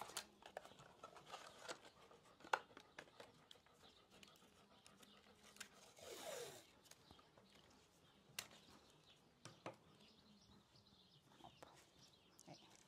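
Faint handling sounds of adhesive surgical tape being pulled from its roll and pressed onto a dog's leg bandage: scattered light clicks and a brief tearing rasp about six seconds in.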